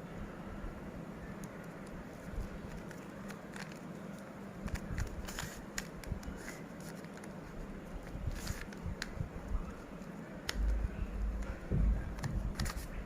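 Plastic Rubik's cube being twisted by hand, its layers making irregular clicks and scrapes as they turn, with a few dull handling bumps near the end.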